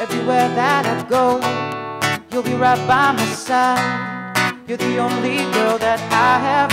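Acoustic guitar strummed in chords while a man sings a wavering melody over it.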